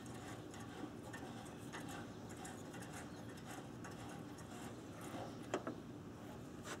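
Faint handling noise as hands work the new air fuel sensor's wire lead and plastic connector: light rustles and small ticks, with one sharper click about five and a half seconds in.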